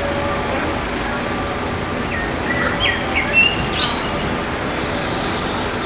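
Small birds chirping a few short, quick calls about halfway through, over a steady low background rumble.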